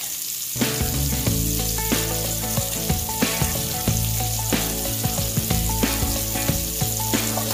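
Wire whisk beating pancake batter in a ceramic bowl, a steady hissy scraping with frequent small clicks of the wires against the bowl. Background music comes in about half a second in and plays under it.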